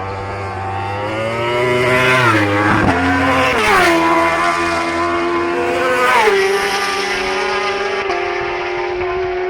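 Racing motorcycles passing at high speed, the engine note dropping sharply in pitch as one goes by two to four seconds in and again about six seconds in.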